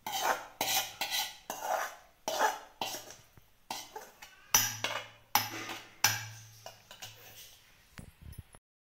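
Metal spoon scraping around the inside of a metal cooking pan, scooping sautéed brinjal and tomato out, in about a dozen quick strokes. The scraping cuts off suddenly near the end.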